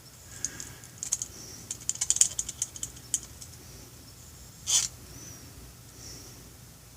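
Light irregular clicks and ticks of a metal pick and small metal parts being handled while cleaning a Harley-Davidson tappet screen, with one short hiss a little under five seconds in.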